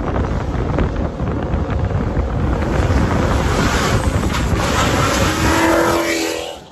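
Heavy wind buffeting the microphone held out of a moving car's window, over road and engine noise. An engine note comes through briefly near the end, then the sound drops off suddenly.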